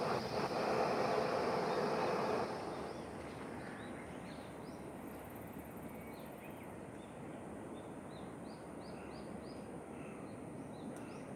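Small birds chirping in short repeated calls over a steady outdoor background. A louder rushing noise fills the first couple of seconds and drops away about two and a half seconds in.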